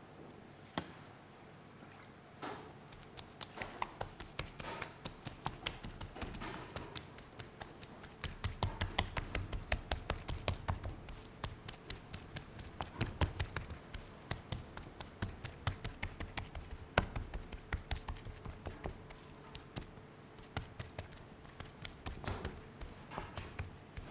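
Rapid, irregular tapping and knocking of hand food preparation, several strikes a second. It grows denser and heavier about a third of the way in, with dull thumps mixed in.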